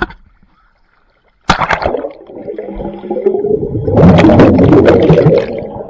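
Pool water splashing and gurgling right at the microphone. It starts suddenly about a second and a half in and is loudest near the end.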